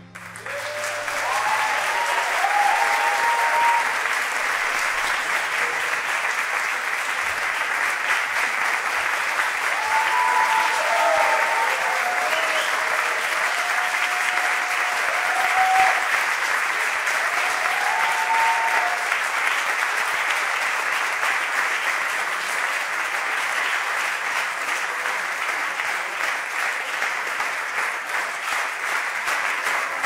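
Audience applauding, with a few voices calling out; near the end the clapping begins to fall into a regular rhythm.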